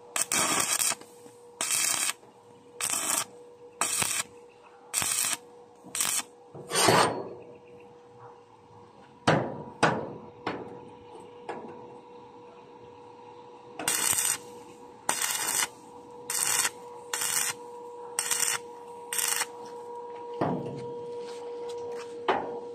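Hand file rasping along the edge of a steel gate panel in short strokes, about one a second, in two runs with a pause of several seconds in the middle.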